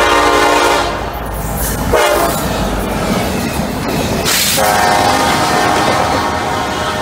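Norfolk Southern freight locomotive horn blowing as the train passes close by. The horn breaks off about a second in, sounds a short blast near two seconds, and sounds again from about four and a half seconds. Under it runs the rumble and wheel clatter of the double-stack intermodal cars rolling past.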